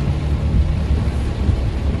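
Heavy rain as a steady rushing hiss over a deep, continuous low rumble.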